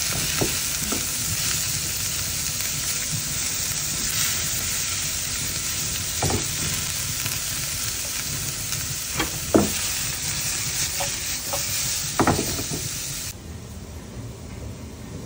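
Onion, garlic and ginger sautéing in hot oil in a nonstick frying pan: a steady sizzle while a spatula stirs them, with a few sharp knocks of the spatula against the pan. The sizzling stops suddenly about thirteen seconds in, leaving a quieter low hum.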